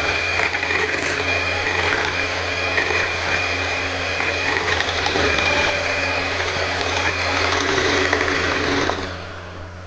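Electric hand mixer running steadily, its two wire beaters whisking a thick mango ice-cream mixture in a glass bowl. It stops about nine seconds in.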